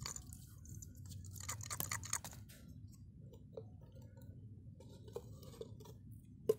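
Handling a small tin of PVC pipe glue: a scratchy rasp as its plastic cap is twisted, then a few small clicks and one sharp click near the end as the tin is picked up.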